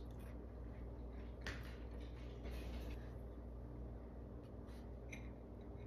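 A fork cutting into a soft biscuit and touching a plate: a few soft clicks and short scrapes, the sharpest about one and a half seconds in, over a low steady hum.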